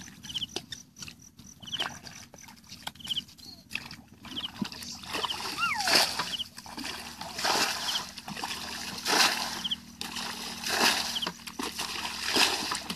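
A bucket being worked through shallow muddy water, splashing in a steady rhythm about every second and a half, louder from about four seconds in.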